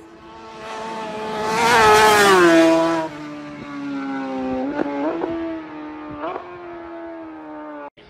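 A racing motorcycle at full throttle passing at very high speed. The engine note builds, peaks and drops in pitch as it goes by, then fades into the distance with a few quick flares in revs.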